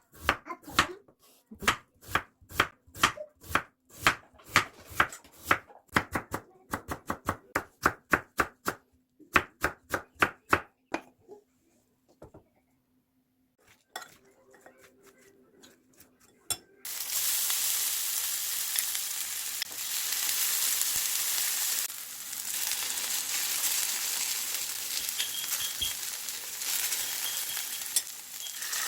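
A knife chopping food on a cutting board in a quick, steady rhythm for about eleven seconds. After a short pause, food goes into a hot pan and starts frying: a loud, steady sizzle that begins abruptly partway through and carries on.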